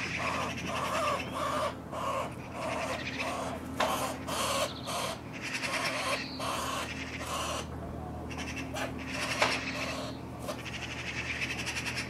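Eurasian magpie giving harsh, rasping distress calls in quick succession, about two a second, while held down by a sparrowhawk. The calls break off briefly about eight seconds in and then resume.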